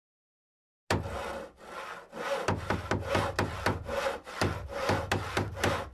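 Hand saw cutting wood in quick back-and-forth strokes, about three a second, starting about a second in.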